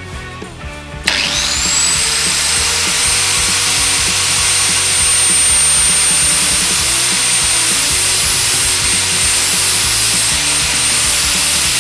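Angle grinder switched on about a second in, its motor whining up in pitch to full speed and then running steadily while a drill bit held in a jig is ground against the spinning abrasive disc, throwing sparks. The sound stops abruptly near the end.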